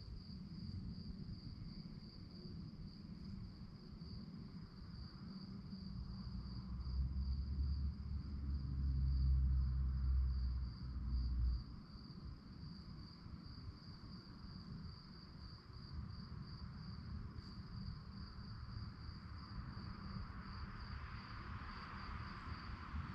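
Crickets chirping in a steady, pulsing trill. A low rumble swells about seven seconds in and cuts off suddenly a few seconds later.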